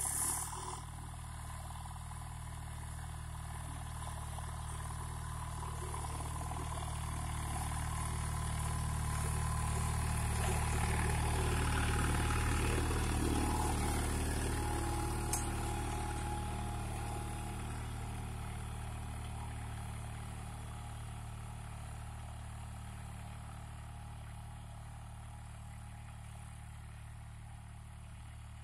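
Captain 250 DI compact tractor's two-cylinder diesel engine running steadily under load while pulling a disc harrow through soil. It grows louder as the tractor comes close, peaking about halfway through, then fades as it moves away.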